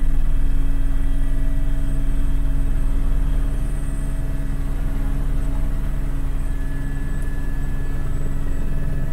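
Helicopter cabin noise in cruise flight: a loud, steady drone of rotor and engine, with thin steady high whining tones from the turbine over it.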